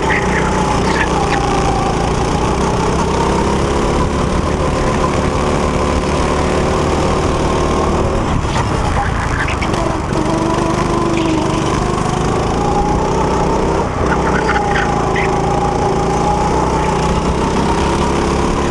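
Go-kart's small engine running hard on a lap, its pitch dipping and climbing again several times as the kart slows for corners and accelerates out of them.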